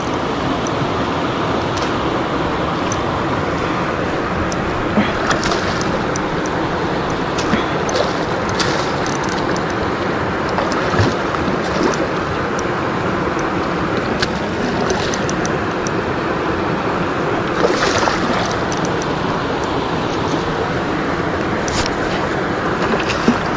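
Steady rush of a river's current running over riffles and rocks, with a few brief clicks scattered through it.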